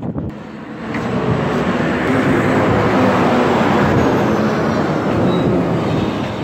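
Road traffic passing close by: a steady rush of vehicle noise that swells about a second in and eases near the end.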